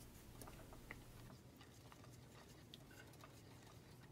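Near silence, with a few faint scattered ticks from a silicone spatula stirring thick cooked pineapple in a stainless steel saucepan, the stove turned off to let it cool.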